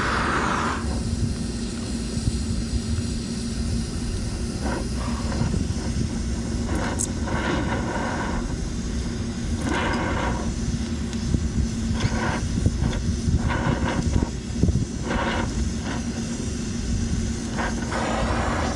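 Twin-tip brazing torch burning steadily on a copper line at a filter drier: a low, even roar with a steady hum beneath it, and short hissing surges every second or two.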